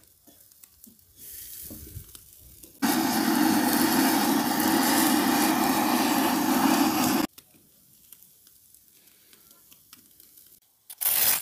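Handheld butane torch on a screw-on canister burning with a steady, loud hiss for about four and a half seconds, starting and cutting off abruptly. Faint grill sizzle before it, and a short loud burst of noise right at the end.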